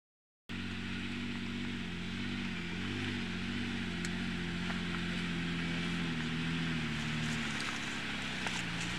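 2000 Ford Explorer's engine running steadily under light load as the truck crawls up a rutted trail. It starts abruptly about half a second in, and the pitch wavers slightly and eases down a little near the end.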